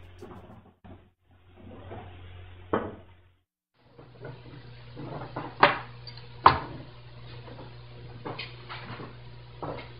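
A wooden snowskate deck being handled on a worktable: a few sharp knocks and taps, the two loudest about five and a half and six and a half seconds in, over a low steady hum.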